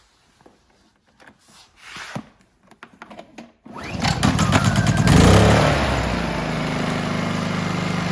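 A few light clicks and knocks, then about four seconds in the Honda 2000-watt inverter generator is pull-started: the small engine catches, swells up in speed briefly and settles into a steady run.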